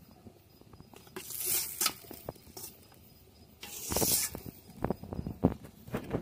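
Steamed momos being picked out of a perforated steel steamer tray by hand: two brief scraping swishes, then a few light knocks of steel.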